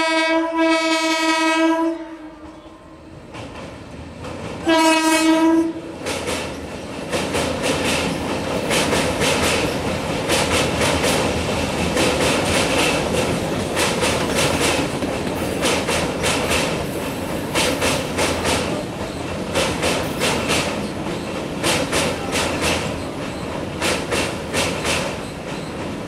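Indian Railways EMU local train sounding its horn twice, a blast of about two seconds and then a shorter one about five seconds in, and then passing at speed: steady running noise with the wheels clicking rapidly over the rail joints.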